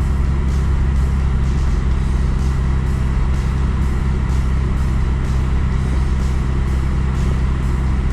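Steady low rumble of a car driving, engine and road noise, with faint high ticks about twice a second.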